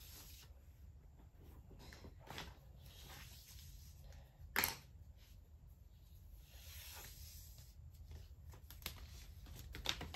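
Hands handling cardboard packaging: faint rustling with a few short clicks and knocks, the loudest about halfway through.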